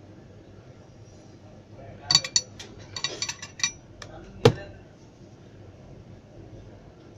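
Small metal repair tools clinking and tapping on the workbench and the opened phone. There is a quick run of sharp clicks about two seconds in, a few more a second later, and one louder knock near the middle.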